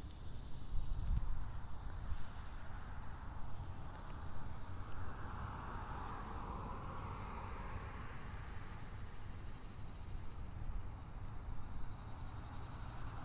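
Insects chirping in grass, a faint high pulse repeating evenly several times a second, over a low rumble with a soft whooshing swell midway.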